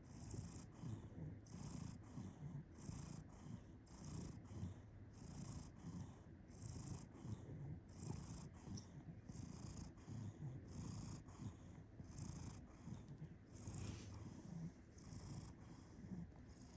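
Domestic cat purring and snoring together: a low, steady purr rumble with a breathy hiss on each breath, repeating about once a second.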